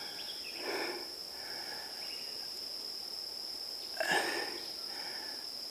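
Insects giving a steady, high-pitched drone throughout. Two brief rustles from handling, about a second in and again around four seconds in.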